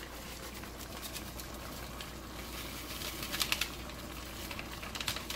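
Paper seasoning packets crinkling and being shaken out over a cooking pot, with a short cluster of crinkles and taps about three seconds in.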